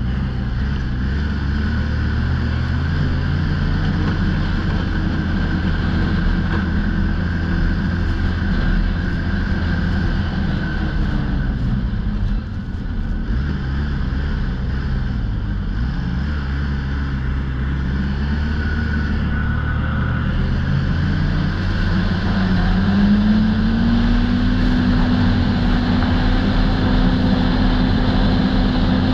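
2008 Polaris Dragon Turbo snowmobile's turbocharged engine running under way, its pitch rising and falling with the throttle. It eases off briefly a little before halfway, then climbs to a higher, steady pitch for the last several seconds.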